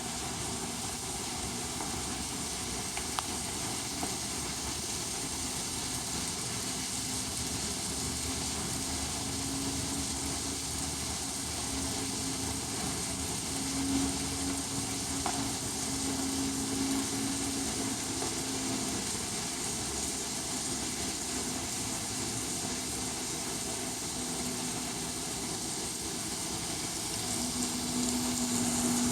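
Small electric motor of an N-scale model train locomotive running, a faint steady hum that swells and fades over a constant hiss.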